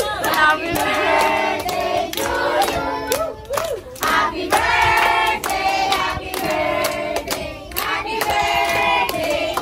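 A group of people singing together while clapping their hands in time.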